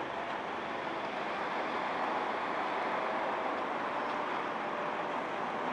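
Steady, even drone of construction-site machinery, with no distinct knocks or changes.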